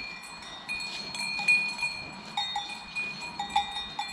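Several cowbells on grazing cattle clanking irregularly, each bell ringing at its own pitch, so the tones overlap and come and go.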